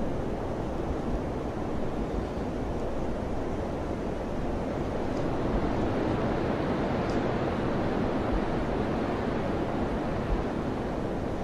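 Wind blowing steadily: a low rushing noise that swells a little midway and eases again toward the end.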